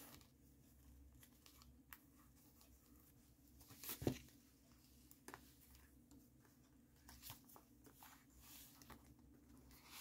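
Faint rustling and crinkling of paper pages and ephemera in a handmade junk journal as it is handled and opened, with light clicks and one sharper knock about four seconds in.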